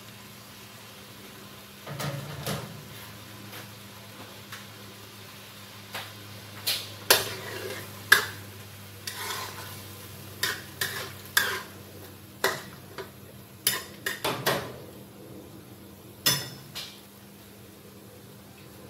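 A cooking utensil stirring petai beans through thick chili paste in a wok, knocking and scraping against the pan in a series of sharp clacks from about six seconds in until near the end, over a steady low hum.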